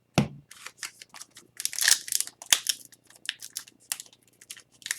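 Trading card packs and cards being handled: a run of short rustles, taps and crinkles of foil wrappers and card stock, with a longer crinkle about two seconds in.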